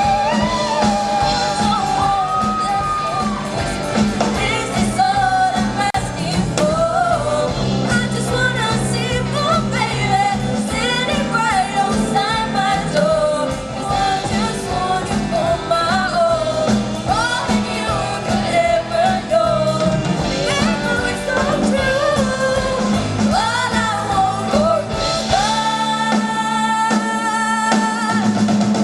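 Live rock band playing with a lead vocalist singing over drums, bass and guitar in a large hall; near the end the drums drop out, leaving held sung and guitar notes.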